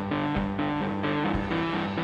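Live rock music in an instrumental stretch with no singing: electric guitar over drums, a low kick-drum thump about once a second.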